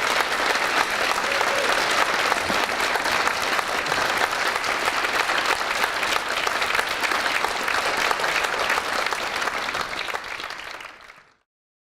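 Concert-hall audience applauding, a dense steady clapping that fades and cuts off abruptly about eleven seconds in.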